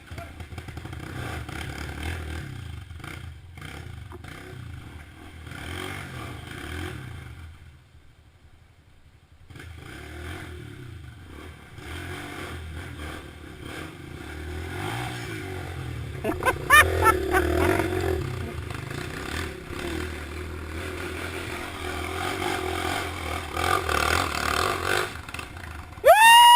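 Off-road motorcycle engine running and revving, rising and falling in level, dropping away briefly about eight seconds in and picking up again.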